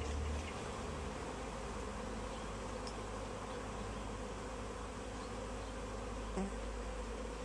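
Honeybee swarm buzzing steadily: the hum of many bees' wings around a swarm cluster hanging in a tree. A low rumble sounds briefly at the start.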